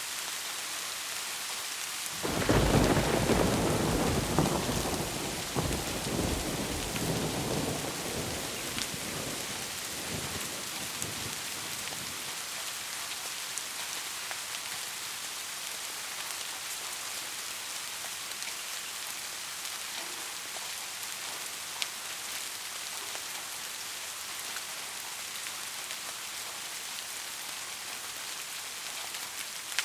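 Steady heavy rain hissing, with a thunderclap breaking about two seconds in: a loud crackling rumble that rolls on and fades away over about ten seconds, leaving the rain alone.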